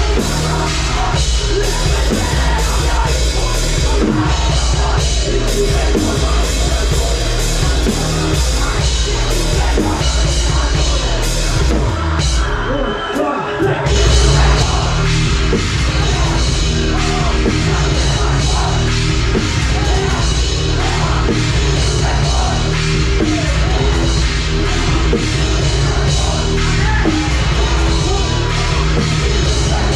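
Live heavy rock band playing loud: electric guitar, bass and drum kit with vocals. About twelve seconds in the low end drops out for a moment, then the full band crashes back in.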